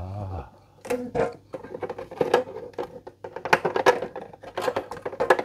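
Irregular clicks, knocks and clatters of containers and bottles being moved about in an opened refrigerator.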